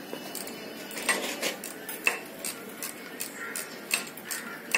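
Spanners and other hand tools clinking and tapping against metal engine parts while a Tata Ace Mega engine is being stripped down: an irregular run of sharp metallic clinks, about two a second.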